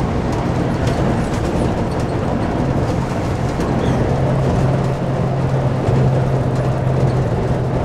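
Volvo coach's diesel engine running under way, heard from the driver's cab, with steady road noise. A low engine hum grows stronger about three seconds in.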